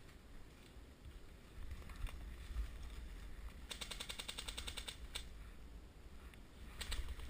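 Airsoft gun firing a rapid full-auto burst lasting about a second, around the middle, with a few single shots before and after it.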